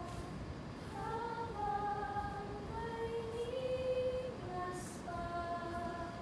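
A woman singing a slow melody without words being picked out, holding long notes that slide from one pitch to the next, over a steady background hiss.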